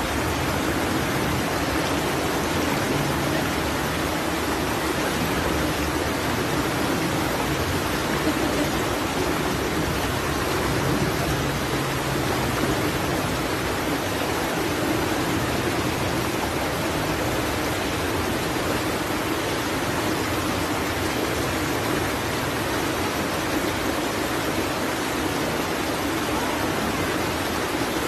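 Rushing water of a small cascade pouring over boulders into a rocky stream pool, a steady, unchanging rush.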